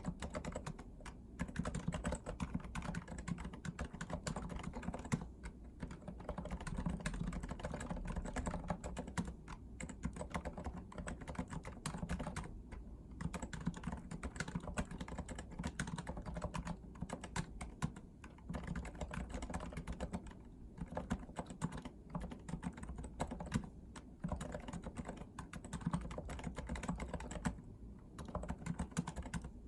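Continuous fast typing on a REALFORCE R2 PFU Limited Edition keyboard with Topre electrostatic capacitive switches, keys clacking in quick runs with brief pauses every few seconds.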